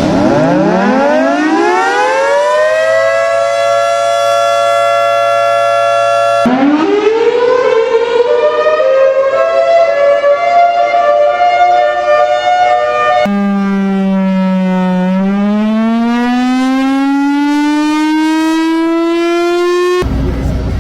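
Warning sirens played one after another with abrupt cuts. The first winds up from low to a steady high wail within about three seconds. A second cuts in about six seconds in and winds up again with a wavering pitch. A third, from about thirteen seconds, dips in pitch, then climbs slowly. Near the end a short, different sound sweeps rapidly down and up.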